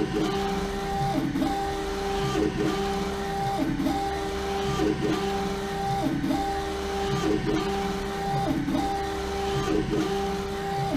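LogoJet UVx60XL UV printer printing onto a bottle turning in its rotary jig. A steady hum runs under the print-head carriage's sweeps, which come back about every second and a quarter.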